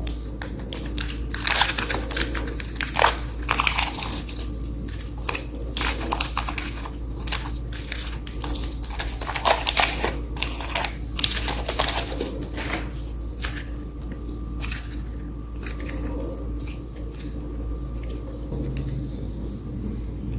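Irregular crackling, crinkling and crunching clicks, denser in the first half, over a steady low hum.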